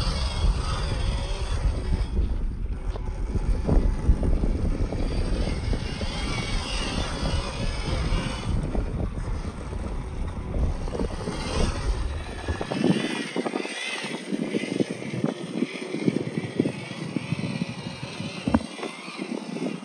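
Wind buffeting the microphone with a deep rumble over the whine of an MN-99S 1/12 RC crawler's small 260 electric motor and gearbox as it crawls over rock. About two-thirds of the way in the rumble drops away, leaving the motor whine and a scatter of small clicks.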